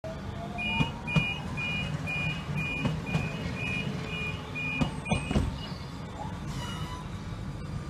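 Croydon tram's door warning: a two-pitch beep repeated about twice a second for about five seconds, with sharp knocks near the start and as the beeping stops, over the low rumble of the trams at the stop.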